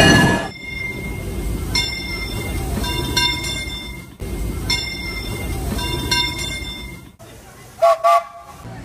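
Steam locomotive bell ringing repeatedly, roughly once a second, over a low rumble, with two short whistle toots near the end. The source is the Disneyland Railroad No. 3 Fred Gurley. A previous locomotive's whistle cuts off in the first half second.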